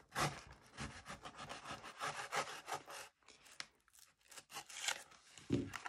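A knife blade cutting and scraping along the sealed cardboard of a trading-card blister box, in short irregular strokes with a brief lull a little past halfway. A soft knock near the end.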